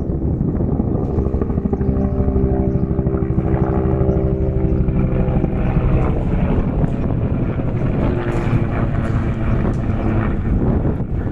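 Bell 212 helicopter flying close by, loud and steady, its two-blade main rotor beating rapidly under a turbine hum.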